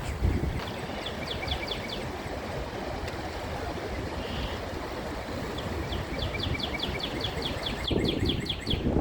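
A songbird singing runs of quick, repeated high notes, about five a second: a short run about a second in and a longer one from about six seconds in. A steady rushing noise runs underneath.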